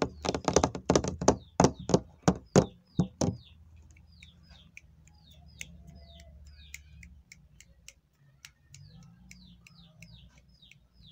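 A small bird chirping: a rapid series of short, sharp chirps, about three a second. They are loud for the first three seconds or so, then much fainter and sparser.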